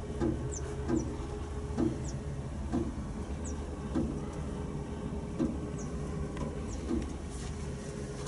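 Cummins turbo diesel engine of a Jack Rabbit JR400 bankout wagon running at a steady idle. Short high chirps recur about once a second over it.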